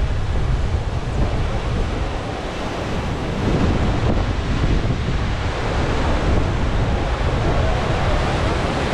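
Artificial surf wave breaking and rolling along a wave pool, a steady rush of whitewater, with wind buffeting the microphone.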